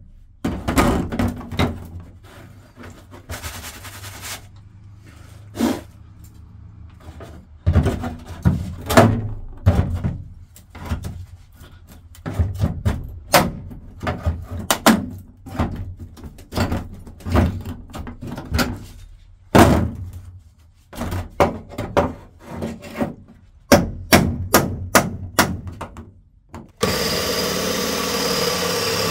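Repeated, irregular hammer strikes on a chisel driven into the rusted sheet-steel cargo floor pan, breaking it away at its spot welds. Near the end an electric drill starts running steadily as it drills out a spot weld in the floor.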